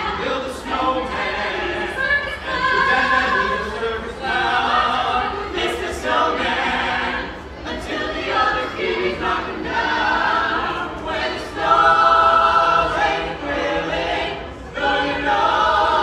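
A small mixed choir of carolers, men and women, singing a Christmas carol a cappella in sustained phrases, with short breaths between lines.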